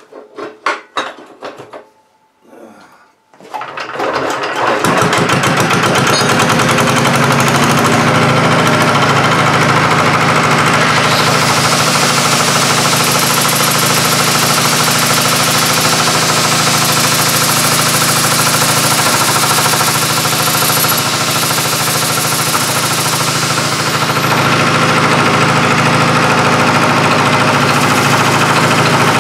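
A few knocks, then about four seconds in a small stationary engine starts and runs steadily. From about eleven to twenty-four seconds an angle grinder is held against the engine's shaft, adding a high grinding hiss over the engine.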